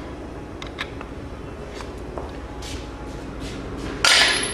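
Steady low hum of a shop room with a few faint light clicks, then a short loud rush of noise about four seconds in.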